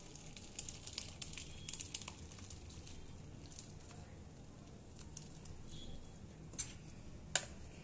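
Faint scattered ticks and light pattering as split milk and whey are poured through a muslin cloth over a strainer, with two sharper clicks near the end.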